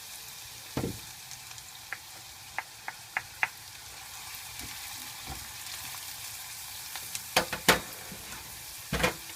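Onion and garlic sizzling in a little oil in a pan, with a utensil knocking against the pan several times as they are stirred.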